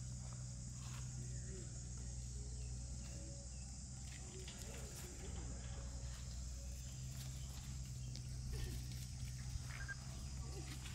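Faint soft low calls and small clicks from a group of long-tailed macaques, over a steady low hum and a steady high drone.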